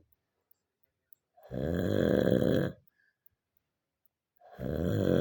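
Two loud, rasping snores from a sleeping person: one starting about a second and a half in and lasting just over a second, the next starting near the end.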